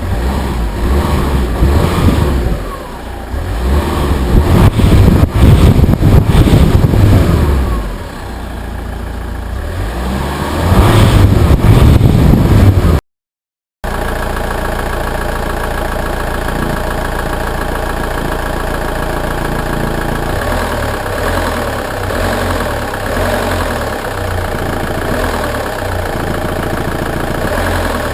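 Alfa Romeo 147's stock 1.9 JTDm four-cylinder turbodiesel revved repeatedly in long pulls. After a brief dropout in the sound it idles steadily.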